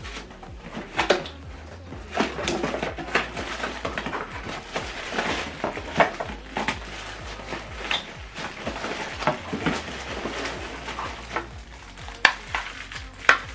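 Cardboard box flaps being opened and plastic-wrapped cables rustled and lifted out, with an irregular run of crinkles, scrapes and sharp knocks; the sharpest knocks come about a second in, at about six seconds and near the end.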